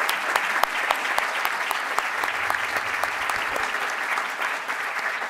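Audience applauding, a dense steady patter of many hands clapping that starts to fade near the end.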